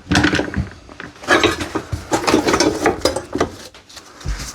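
Loose metal hand tools clattering and clinking against one another as they are rummaged through, in several quick bursts.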